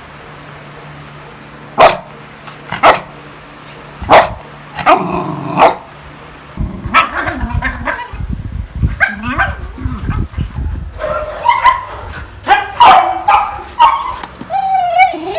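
Beagle barking: five sharp single barks about a second apart, then a busier run of short yips and whines over a low rumble. A drawn-out whine starts near the end.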